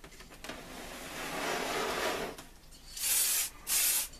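A rubbing scrape for about two seconds as the wooden radio cabinet is turned on its cardboard box. Near the end come two short hissing blasts from an aerosol can of clear car lacquer.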